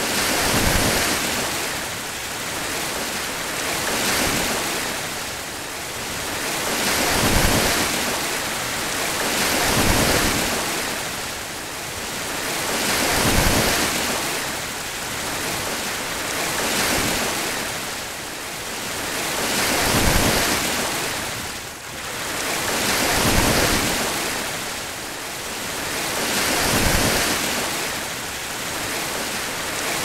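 Ocean waves breaking and washing in, a steady hiss of surf that swells and eases about every three seconds.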